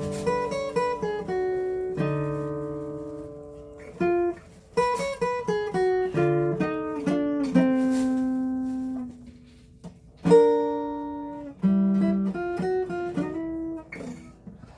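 Acoustic guitar being played: plucked single notes and chords that ring and decay, in short phrases with brief pauses. The playing fades out near the end.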